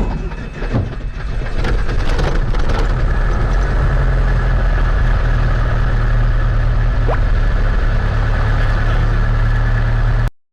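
Light aircraft's piston engine catching after the start and settling into a steady idle. It is uneven for the first second or so, then runs evenly, and cuts off suddenly near the end.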